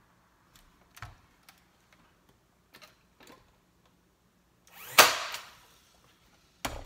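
Porter-Cable battery-powered cordless nail gun firing once into a wooden sign frame, about five seconds in: a short motor whir and a sharp shot. Light knocks of handling come before it, and another knock comes near the end.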